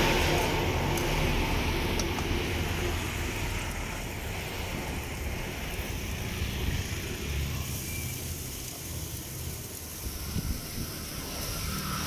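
Steady street background noise, mostly a low traffic rumble, louder at the start and easing off over the first few seconds.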